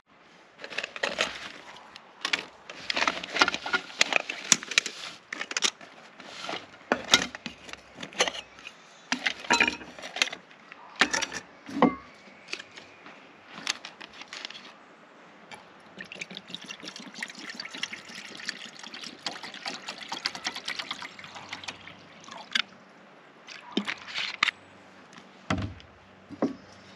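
Camping cook gear handled on a wooden picnic table: a run of clacks and knocks as a small pot and stove kit are unpacked. After that comes a steady pour of water from a plastic bottle into the camping pot, with a few more knocks near the end.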